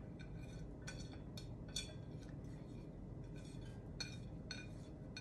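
Chopped vegetables being pushed off a plate by hand and dropping into a glass bowl: faint, scattered small taps and light clinks.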